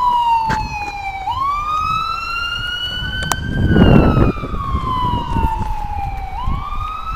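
Emergency vehicle siren wailing, its pitch sliding slowly down and then back up, about one and a half cycles. About four seconds in, a short rustle of leaves brushing past the microphone.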